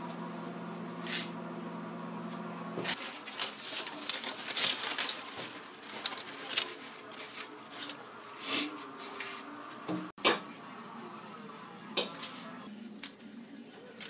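Aluminium foil crinkling and rustling as a foil-wrapped roast is handled, after a steady appliance hum that stops about three seconds in. Near the end come a few sharp single clicks from scissors snipping the roast's string.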